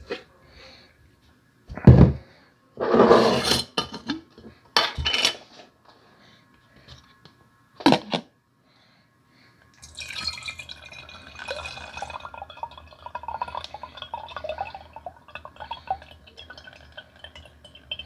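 Glass mason jars and a metal screw lid knocking and scraping on a counter as a jar is opened, the loudest knock about two seconds in. From about ten seconds in, apple cider vinegar is poured from a mason jar through a plastic funnel into another glass jar: a steady trickle and splash of liquid filling the jar.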